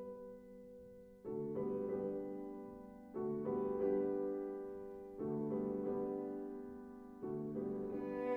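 Background piano music: slow, sustained chords, a new one struck about every two seconds and each fading away.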